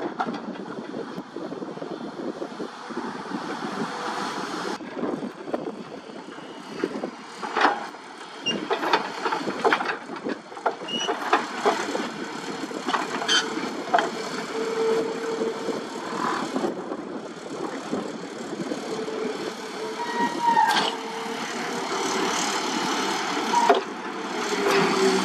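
Sumitomo long-boom excavator running, its hydraulics working a vibratory pile hammer's clamp, with steel sheet piles clanking now and then. A steady tone comes and goes several times in the second half.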